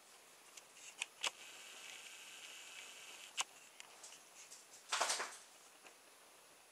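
Soft rustling and handling noise as pets move against the camera on a sofa: a few light clicks, then a short, louder rustle about five seconds in.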